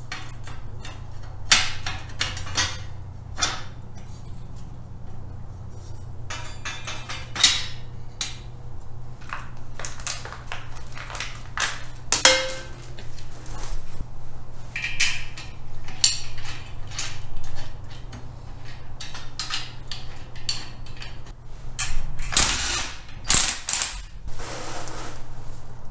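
Irregular metal clanks, clicks and knocks as a steel axle truss is handled and fitted against a Ford Sterling 10.5 axle housing, with a few louder knocks near the end. A steady low hum runs underneath.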